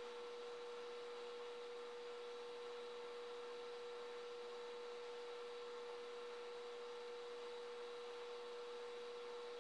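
A steady hum held at one pitch, with fainter higher tones above it, over a constant hiss.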